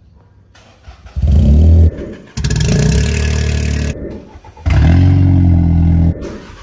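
Modified cars' engines starting from cold and running loudly through aftermarket sport exhausts, heard as three separate bursts about a second or so long, each cut off abruptly. The last is a Stage 2 BMW 3 Series with a downpipe and its exhaust valve held open.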